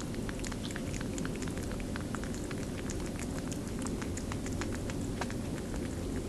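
A rabbit licking and lapping up applesauce: many small, quick, wet clicks of tongue and lips, over a steady low hum.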